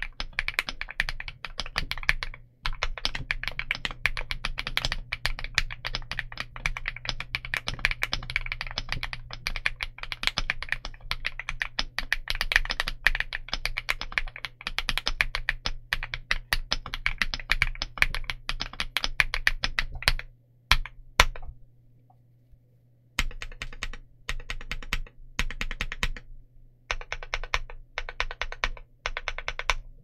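Typing on a KiiBOOM Loop65 mechanical keyboard with KiiBOOM Matcha Latte linear switches and dye-sub PBT Cherry-profile keycaps. The keystrokes come fast and continuous for about twenty seconds. After a short pause they come in separate short runs of key presses.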